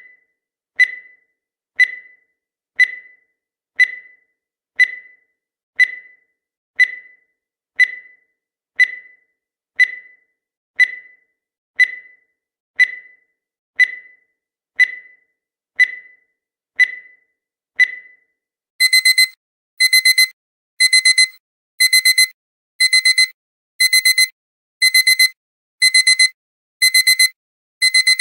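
Countdown timer sound effect: one short, high tick-beep each second as the last seconds run down. At zero, about 19 seconds in, the alarm sounds: bursts of rapid electronic beeps about once a second, like a digital alarm clock.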